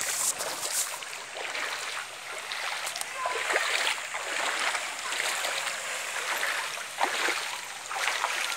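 Floodwater running and splashing: an even watery hiss broken by frequent irregular splashes.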